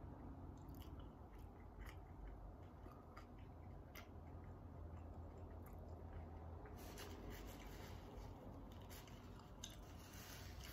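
Quiet chewing of a mouthful of burger, with faint scattered mouth clicks. There are brief crinkly rustles in the second half.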